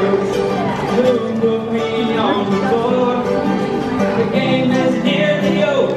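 An acoustic guitar and a mandolin playing a bluegrass tune together live, with a steady strummed rhythm.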